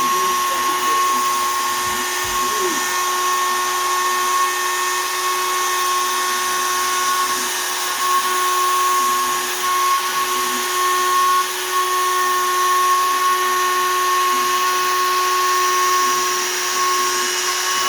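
Shapeoko 3 XL CNC router's spindle running at about 20,000 rpm, driving a 1/8 in two-flute downcut spiral bit through poplar. It is a steady high whine over a continuous cutting hiss.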